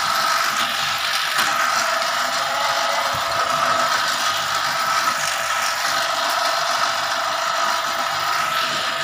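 Electric-motor-driven bamboo strip-slicing machine running steadily: a constant whine over a noisy mechanical rattle. The noise comes from the old motor's pulley, which has worn loose.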